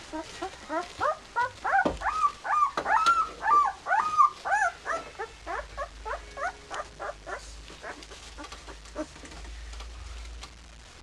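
Nine-day-old Swiss White Shepherd puppies whimpering and squeaking: a quick run of short, high cries, each rising and falling in pitch, loudest in the first few seconds and then tapering off.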